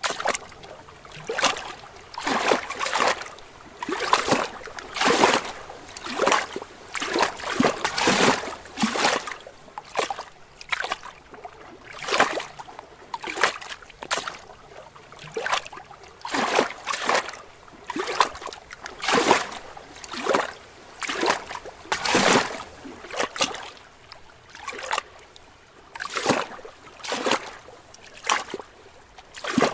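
Small lake waves lapping against rocks: short, irregular splashes coming about once or twice a second, with brief lulls between them.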